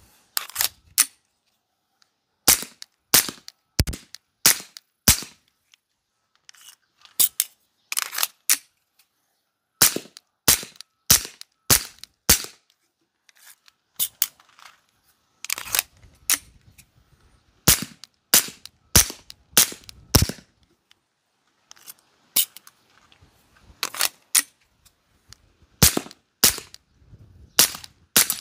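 Beretta M9A4 9mm pistol firing subsonic 147-grain ammunition through a PWS BDE9 suppressor: about three dozen sharp shots in quick strings of several rounds, with short breaks between the strings.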